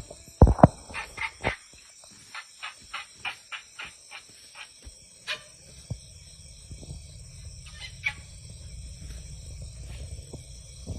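A loud thump about half a second in, then a run of short high animal calls, about three a second, thinning out after a few seconds; a low rumbling noise sets in about six seconds in.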